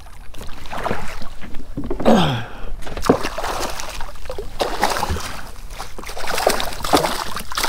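A hooked speckled trout thrashing and splashing at the surface beside a kayak as it is reeled in, a run of sharp water splashes from about three seconds in. A short voice exclamation about two seconds in.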